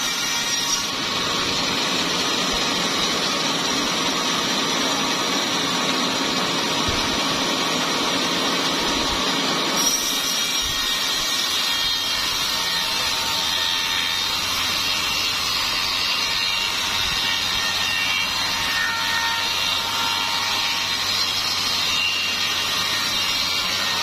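Vertical band sawmill running steadily as its blade saws lengthwise through a small-leaf acacia log, ripping it into boards; the sound changes a little about ten seconds in.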